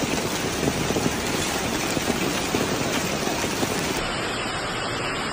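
Hail falling heavily, a dense patter of stones striking the pavement and hail-covered ground. About four seconds in the sound changes to a smoother, steady rush of a hail and rain storm.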